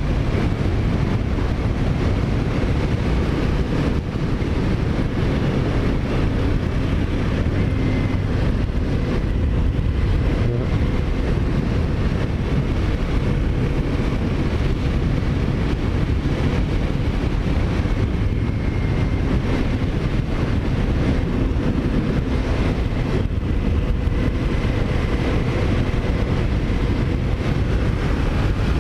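Kawasaki Ninja 400's parallel-twin engine running at a fairly steady pace while riding, with wind rushing over the microphone.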